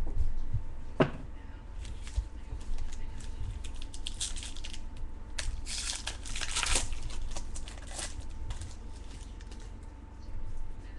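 Plastic crinkling and cards rustling as baseball cards and their packaging are handled, with a sharp tap about a second in and the crinkling densest around the middle.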